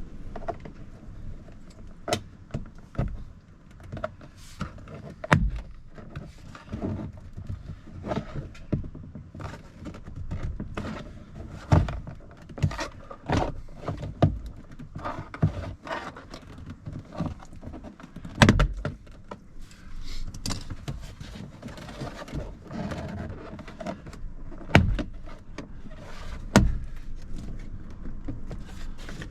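Irregular clicks, knocks and light rattles of hands and tools working on a car door's plastic trim panel, with a few louder thuds.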